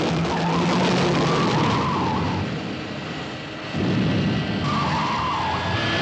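The 1966 TV Batmobile pulling away on a dirt road: its engine revving with wavering tire squeals, once in the first two seconds and again about five seconds in, and the engine surging back up about four seconds in.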